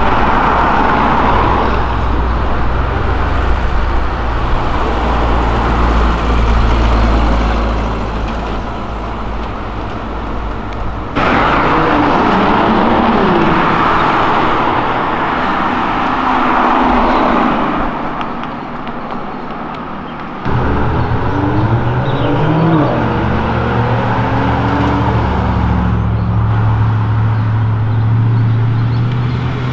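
Cars driving past in city traffic, engines and exhaust heard in three separate clips that change suddenly about 11 and 20 seconds in. The middle and last clips carry engine notes that rise and fall as the cars rev, and the last has a strong low rumble.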